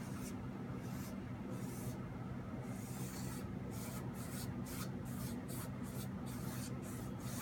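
Paintbrush strokes rubbing across a painting surface, a few slow scratchy strokes at first, then quicker ones several a second from about halfway in. A steady low hum runs underneath.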